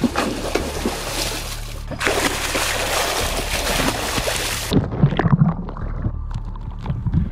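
A person jumping into the sea with a loud splash. A little before the end the sound suddenly turns muffled as the recording phone goes under, leaving low bubbling and gurgling water around the diver.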